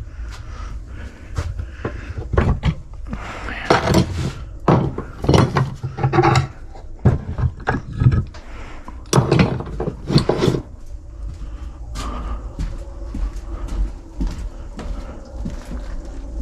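Firewood and stove parts knocking and clattering as a wood-stove fire is tended. Irregular knocks run throughout, with a few longer, louder scraping rattles in the middle.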